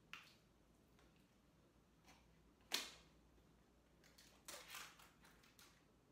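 Quiet handling of a small plastic food tub being opened by hand: a faint click at the start, one sharp snap about three seconds in, then a quick run of rustles and clicks near the end.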